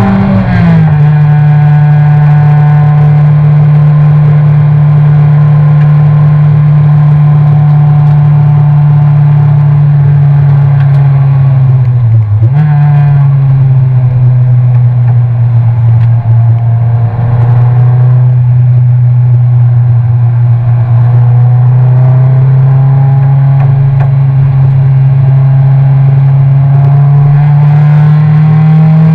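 Toyota race car's engine running hard under racing load, heard loud from inside the cockpit. Revs drop sharply about half a second in as for an upshift, dip and jump back up about twelve seconds in as for a lift and downshift, then climb slowly as the car accelerates.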